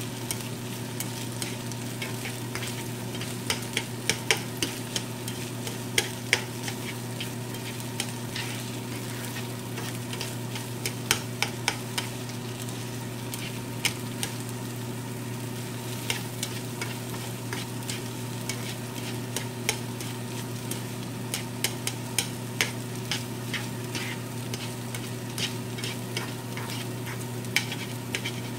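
Ramen noodles with chicken, broccoli and egg sizzling in a skillet while being stirred, with frequent irregular clicks and scrapes of chopsticks against the pan. A steady low hum runs underneath.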